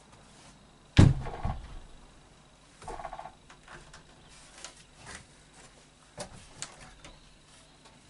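A heavy timber joist being manhandled across other joists: a loud wooden thud about a second in, then creaks and lighter knocks as the timber is shifted.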